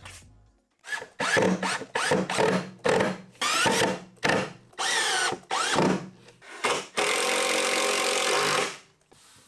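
Cordless drill driving screws through caster mounting plates into plywood, in a series of short trigger bursts whose pitch rises as the motor spins up. A longer steady run comes near the end.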